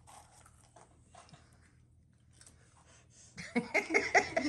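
Faint crunching of Cheez-It crackers being chewed, a few soft crackles at a time, then a child's voice coming in loudly about three and a half seconds in.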